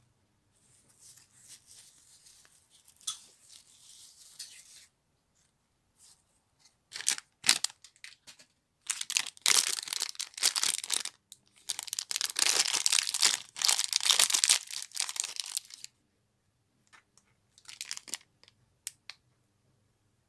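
Pink plastic foil accessory bag from a toy blind box being torn open and crinkled by hand. Soft rustling for the first few seconds, then several loud bursts of tearing and crinkling plastic in the middle, and a few short crinkles near the end.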